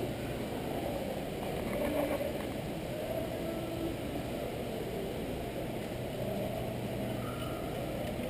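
Steady room ambience of a large store hall: a constant low rumble and hum, with faint, indistinct fragments of sound from far across the space.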